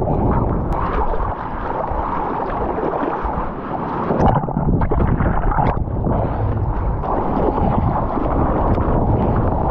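Sea water rushing and sloshing around a surfer, with wind buffeting the action camera's microphone and a few sharp clicks.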